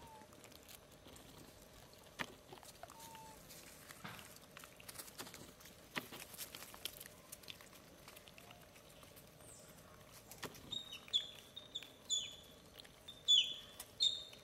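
Light scuffs and clicks of a troop of long-tailed macaques moving and grooming on a stone path. In the last four seconds comes a quick run of short, high-pitched chirping calls, each falling slightly in pitch.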